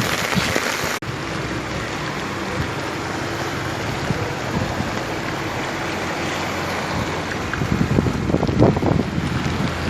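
Heavy rain falling as a steady hiss, changing abruptly about a second in. In the last two seconds wind gusts buffet the microphone.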